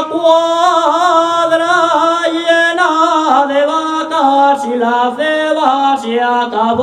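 A young man singing a Cantabrian tonada montañesa unaccompanied: long, ornamented melismatic phrases with held, quavering notes that step gradually lower, and a brief break for breath near the end.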